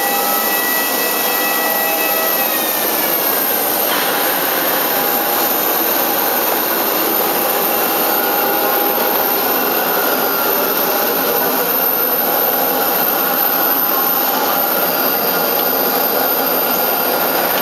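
Steady, loud rush and whine of aircraft turbine noise, with a few high tones that slide down in pitch about two to four seconds in.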